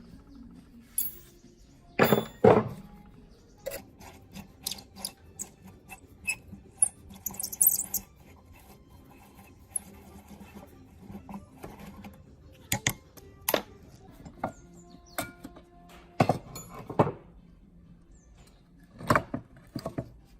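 Metal parts and hand tools being handled while a metal cutting machine is taken apart or restored: scattered clinks and knocks, a few of them ringing briefly, with louder knocks about two seconds in, around thirteen and sixteen seconds, and near the end.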